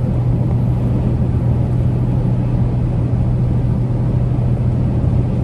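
Steady low drone of a Kenworth T880 truck's diesel engine and road noise, heard from inside the cab while cruising on the highway.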